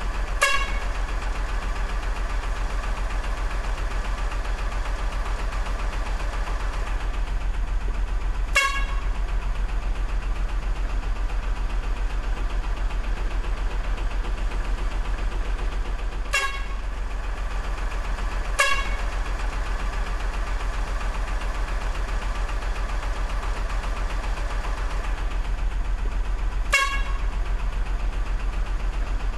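Short toy-truck horn toots, five in all and spaced several seconds apart (two close together just past the middle), over a steady low electric engine-like hum.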